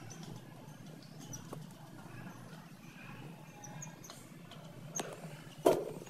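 Young chicks giving scattered faint, short high peeps, with a single loud thump near the end.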